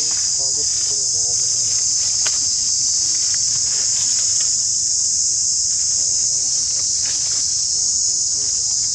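Steady, loud, high-pitched droning of an insect chorus, unbroken throughout, with faint voices or calls rising and falling beneath it now and then.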